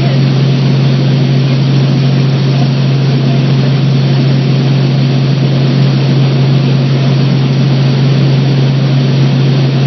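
Boat engine running steadily: a constant low hum over an even hiss.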